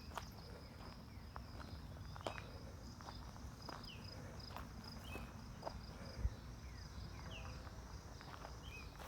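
Footsteps crunching over rough ground outdoors, with insects trilling steadily in a high, pulsing tone and a few short downward-sliding bird chirps. One heavier thump a little past the middle is the loudest sound.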